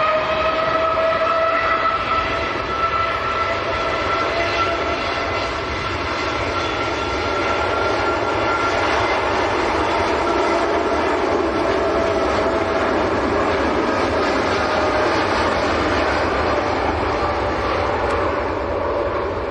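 Boeing 787-8 jet engines running at high thrust: a whine that rises in pitch at the start and then holds steady over a loud rush, easing off slightly near the end.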